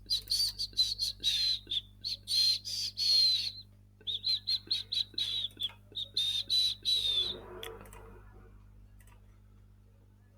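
A bird chirping: quick runs of short, high notes in three bursts, stopping about seven seconds in.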